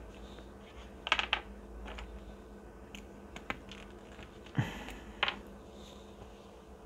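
A series of small, sharp clicks and taps as an earphone plug and its small parts are handled, then a duller knock as the plug is set down on a cutting mat, over a faint steady hum.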